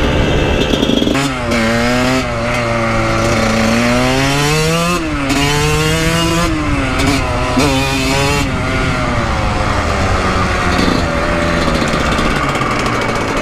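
Dirt bike engine running while being ridden, the revs rising and falling several times, then running steadier and lower in the second half.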